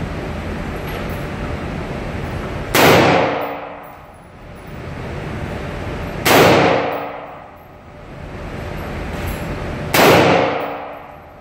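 Three shots from a Diamondback DB15 AR-15 rifle, about three and a half seconds apart, each a sharp crack with a ringing decay, over a steady rushing noise.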